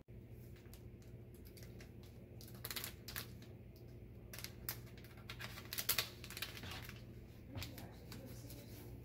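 Seasoning packet crinkling and crackling in the hands in irregular clusters of sharp rustles, loudest about six seconds in.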